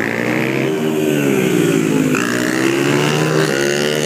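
Motorcycle engine revving as a bike rides around the lot, its pitch rising and falling several times.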